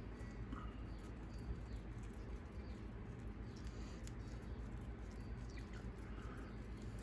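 Faint small clicks and brief high chirps or squeaks over a steady low hum.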